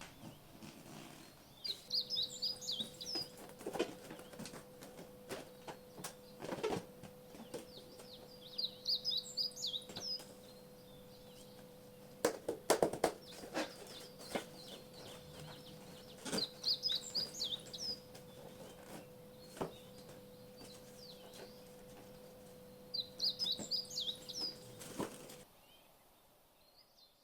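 Scattered clicks and taps of plastic and foam kit parts being handled, with short bursts of bird chirps about every seven seconds and a faint steady tone underneath. Everything cuts off suddenly near the end.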